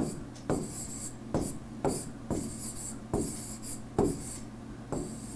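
Stylus writing on a tablet screen: a sharp tap about twice a second as each stroke lands, with short scratchy strokes between the taps.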